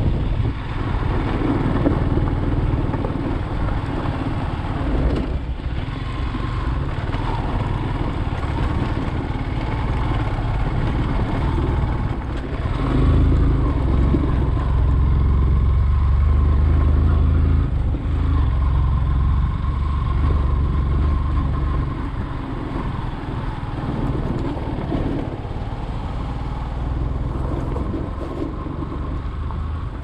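Yamaha 150 cc single-cylinder motorcycle engine running steadily while riding along a gravel road, mixed with low rumbling noise. It gets louder for several seconds in the middle.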